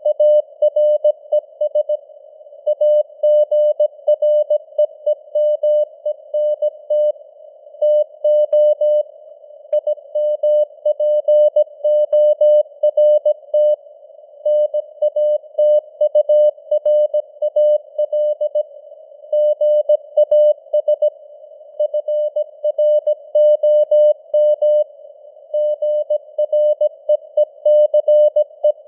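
Morse code (CW) sent at 17 words per minute: a single steady tone keyed on and off in dots and dashes, with short gaps between characters and words. The tone sits over a constant band of simulated radio hiss.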